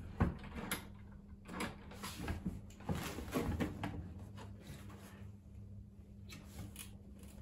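Plastic motorcycle top box being shifted and handled on its mounting plate, with a series of irregular short knocks and clicks of plastic against plastic and metal.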